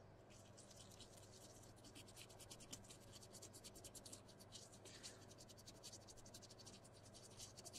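Faint, rapid scratching of a small brush scrubbing a liquid-damaged circuit board clean.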